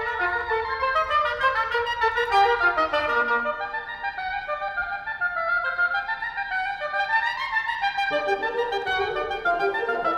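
Woodwind ensemble, with clarinets to the fore, playing a quick Scottish fiddle tune arranged for winds, in busy runs of notes. A falling run comes about two to three seconds in, and lower parts join about eight seconds in.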